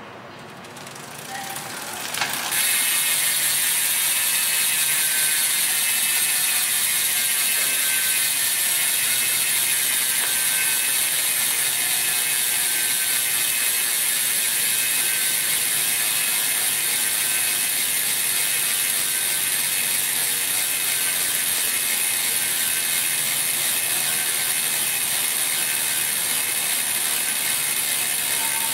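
Campagnolo Shamal Ultra Mega G3 rear hub freewheeling, its ratchet pawls clicking so fast that they merge into a continuous buzz. It builds up over about the first two and a half seconds, then runs steadily.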